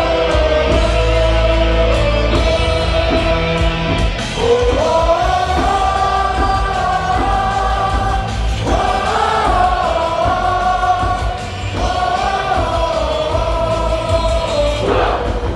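Baseball stadium crowd singing a team cheer song in unison along with backing music, in long held notes.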